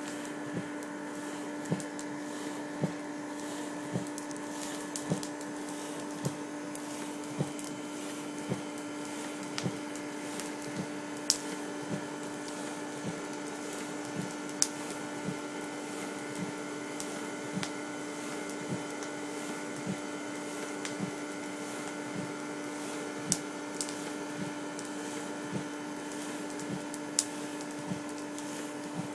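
Steady machine hum, like a motor-driven blower, with a short sharp tick about once a second, a few of them louder than the rest.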